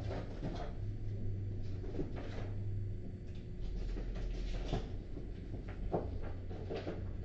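Quiet room tone under a steady low hum, with scattered faint small knocks and rustles such as papers and desks being handled.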